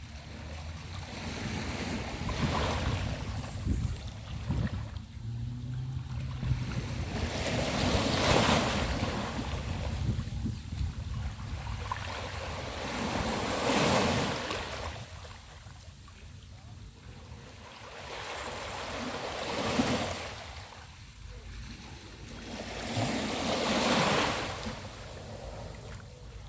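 Small sea waves breaking and washing up a beach, each wash swelling and fading about every five to six seconds, five in all. A low rumble of wind on the microphone runs underneath.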